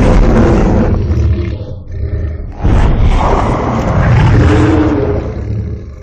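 Godzilla roar sound effect: two long, loud roars, the first lasting about two seconds and the second starting a little before the three-second mark and fading out near the end.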